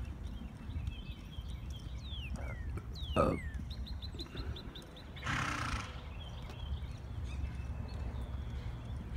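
A mare moving, with a short breathy blow about five seconds in, over a steady low rumble.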